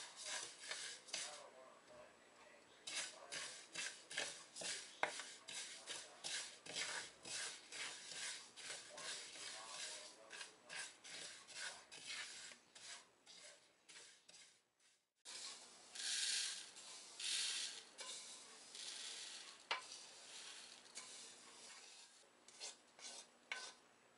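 Wooden spatula scraping and stirring sesame seeds across a dry metal frying pan as they toast, in quick repeated strokes, with a brief break about two-thirds through.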